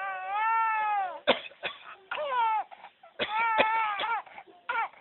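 A baby's high-pitched squeals: three drawn-out calls, each rising and falling in pitch, with a few short sharp sounds between them.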